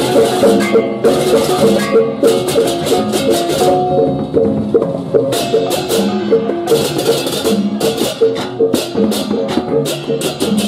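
Balinese baleganjur processional gamelan: hand-held small gongs beaten with mallets in fast interlocking patterns, with clashing hand cymbals (ceng-ceng kopyak) crashing on top. The cymbal crashes pause briefly about four seconds in, then return.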